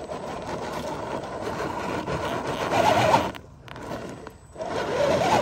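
RC scale crawler's electric motor and drivetrain whining under throttle, the pitch rising and wavering as the tyres spin and scrabble in loose sandy dirt, where the cheap tyres lose grip. The whine drops away briefly twice, a little past three seconds and again past four seconds, then picks up again near the end.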